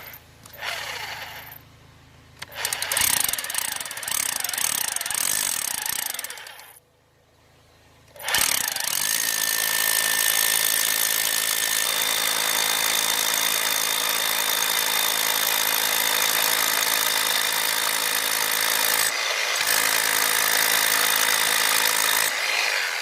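Hammer drill boring an 18 mm hole into concrete: a short burst, a run of about three seconds, a pause, then a long steady run of about fourteen seconds with a brief let-up near the end, drilling the hole to depth for a tie-down bolt.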